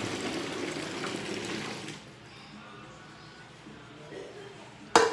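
Hot liquid pouring from a steel pot into a plastic bucket: a steady splashing rush that stops about two seconds in. Near the end comes one sharp metallic clang, the loudest sound, as the steel pot is set down on the stainless steel sink counter.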